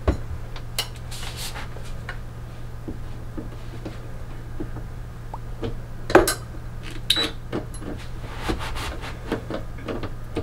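Metal clinks and knocks of a small closet rod and its brackets being fitted and screwed up under a shelf, over a steady low hum. The sharpest knock comes about six seconds in.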